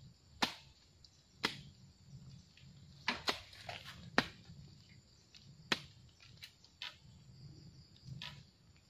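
Irregular sharp cracks and knocks, about eight in all and unevenly spaced, from hands working in dry bamboo litter and stems at the foot of a bamboo clump while a bamboo shoot is dug out.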